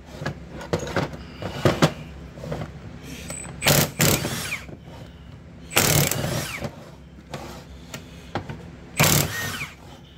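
Milwaukee impact wrench hammering in three short bursts, loosening the bolts of a Rolls-Royce Silver Spur brake caliper being stripped down for rebuild. Metal clinks of caliper parts being handled in the first couple of seconds.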